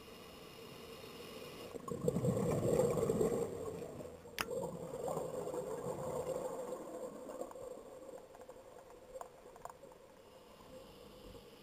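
Scuba diver's breathing heard underwater through the camera: a gurgling exhalation of regulator bubbles swells about two seconds in and dies away over several seconds, with a sharp click just after it starts to fade. A faint hissing inhale through the regulator begins near the end.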